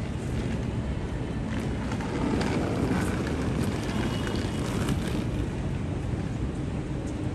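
City street ambience: a steady low rumble of traffic, swelling slightly for a few seconds in the middle, with a few faint clicks.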